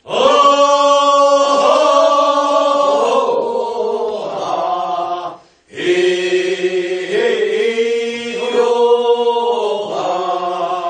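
A group of voices chants the refrain of a Korean rice-paddy weeding song. It comes in two long, drawn-out phrases with a short breath break about halfway.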